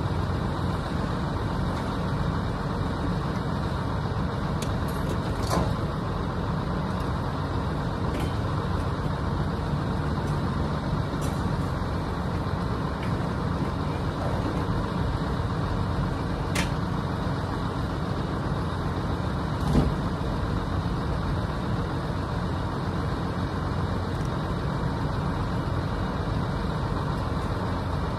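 Steady vehicle road noise, with a few faint rattles and one louder knock about twenty seconds in.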